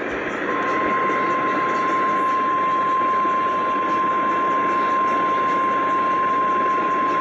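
NOAA Weather Radio 1050 Hz warning alarm tone: one steady high tone that starts about half a second in and holds, over the hiss of weather-radio reception. It signals that an emergency weather alert is about to be read.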